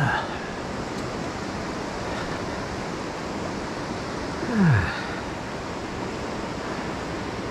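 River rapids rushing steadily. About four and a half seconds in comes one brief, loud sound that slides down in pitch.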